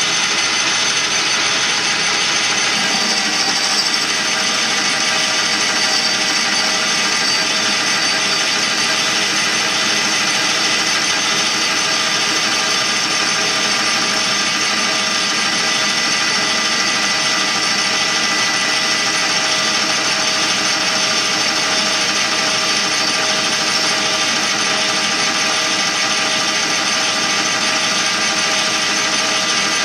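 Metal lathe running under power while a tool bit turns down the outside of a metal tube: a steady whine from the machine over the hiss of the cut, unchanging throughout.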